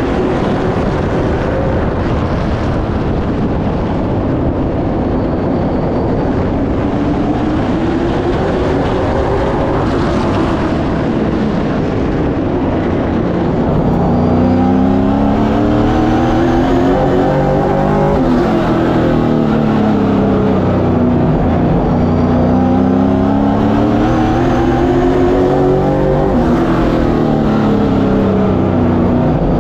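Pro Late Model race car's V8 engine heard from on board, revving up and backing off in a repeating cycle of about eight seconds as the car drives down the straights and lifts for the turns of a short oval. From about halfway the engine note is clearer and slightly louder.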